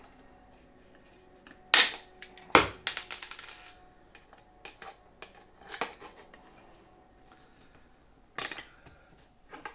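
Hand pop-rivet gun pulling 3 mm aluminium dome rivets: a string of sharp snaps and clicks as the tool is squeezed and the steel mandrels break off. The loudest two snaps come about two seconds in, followed by a second of light crackling, then a few more scattered clicks.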